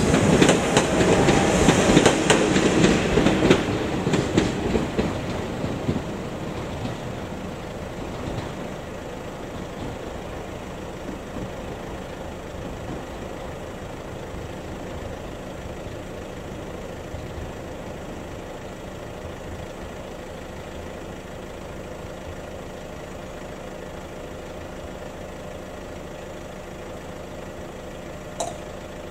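Passenger train running over a level crossing, loud at first and fading over the first five or six seconds as it moves away. Then a steady, lower background, with one short click near the end.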